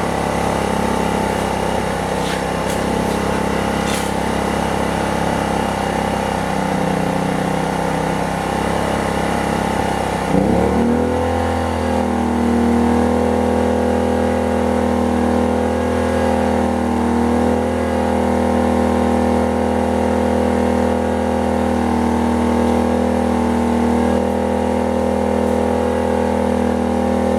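Predator 2500 inverter generator's small engine running steadily at a low speed, then about ten seconds in revving up quickly and settling at a steady higher speed as a 1500-watt heater's resistance load comes on. It carries the load without faltering.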